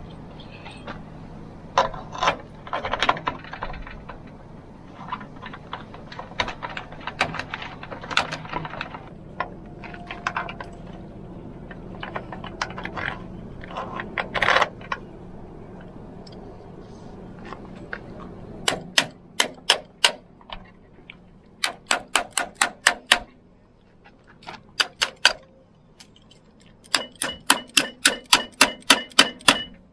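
Scattered metal clicks and taps of screws and tools being handled on an aluminium masthead cap. In the last third, four runs of quick, evenly spaced ratchet clicks, about four or five a second, from a hand ratchet driver turning the screws that hold the masthead top on.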